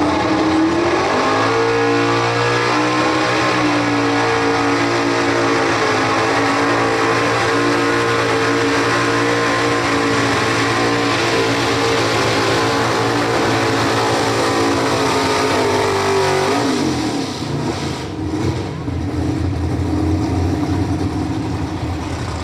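Pickup truck pulling engine revving up from the starting line, then held at full throttle at a steady high pitch for about fourteen seconds while it drags the sled. About sixteen seconds in the throttle is lifted and the engine drops back to a low, rough idle.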